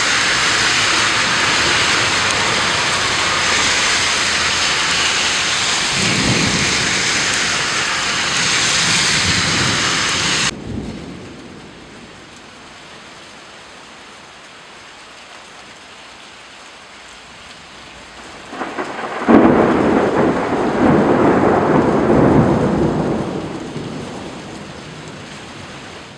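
Heavy rain falling steadily, with thunder rumbling low in the middle of it. The sound then drops suddenly to a quieter rain hiss, and a loud thunderclap breaks in and rolls on, fading away over several seconds.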